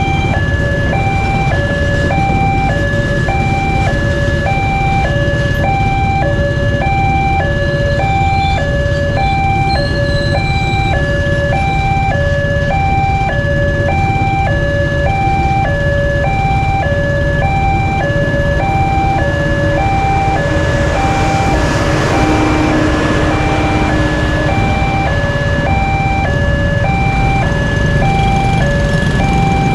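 Railway level-crossing warning alarm sounding from the signal mast's loudspeaker: two tones alternating about once a second, repeating without a break. Under it runs the low, steady rumble of a passenger train passing over the crossing.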